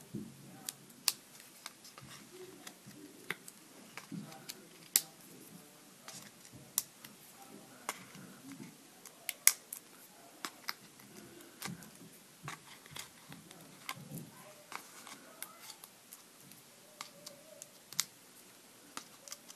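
Irregular small clicks and crackles of paper handling: foam adhesive dots being peeled off their backing and pressed onto the back of a paper tag.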